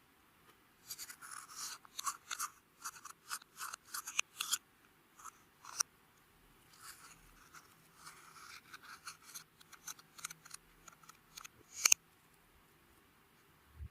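Clear slime being mixed and worked by hand, making quick runs of sticky clicks and squishes in two stretches, with one sharp loud pop near the end.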